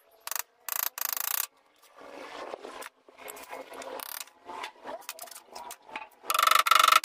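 Hand screwdriver driving screws into the wooden frame of a bamboo chicken coop's door: short bursts of scraping and grinding, the loudest near the end, with quieter rubbing and rattling of wood and bamboo in between.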